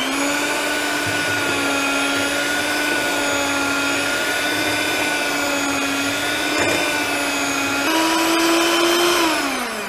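Electric hand mixer on low speed beating a runny batter: a steady motor whine that rises slightly in pitch about eight seconds in, then winds down near the end as it is switched off.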